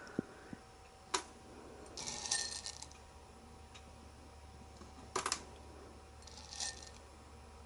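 Faint clicking and rattling of whole roasted coffee beans against a drinking glass as a few beans are picked out by hand. Single clicks come in the first second and about five seconds in, with short rattles about two seconds in and near the end.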